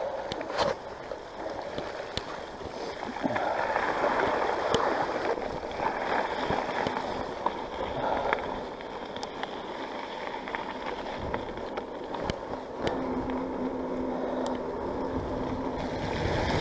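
An On One Parkwood mountain bike rides along a flooded trail, its tyres swishing and splashing through the water. Scattered clicks and knocks come from the bike over the rough ground.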